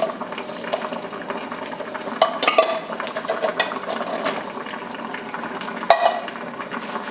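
A pot of curry oxtail gravy bubbling at a boil while it is stirred, with a few short knocks and scrapes of a utensil against the pot or can, about two seconds in and again near six seconds.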